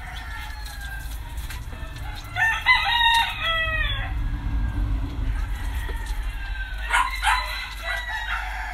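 A rooster crowing, a loud multi-part call about two seconds in that ends on a long falling note, with another shorter call about seven seconds in.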